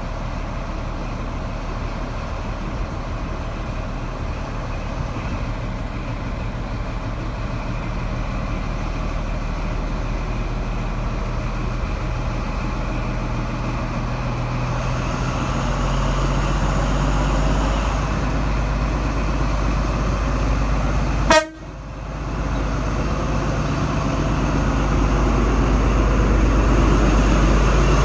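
Class 43 HST diesel power car engine running steadily, then building up as the train pulls away, growing louder as the power car draws near and passes. A sharp click with a brief drop in sound about three quarters of the way through.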